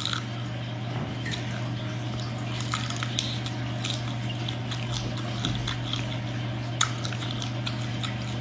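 Mantis shrimp shells clicking and crackling as they are peeled apart by hand, with wet sucking and chewing sounds, over a steady low hum. The sharpest click comes near the end.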